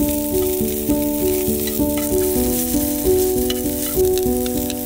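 Green onion pieces sizzling in oil in a frying pan, with a few small ticks, under background music of held notes that change every half second or so.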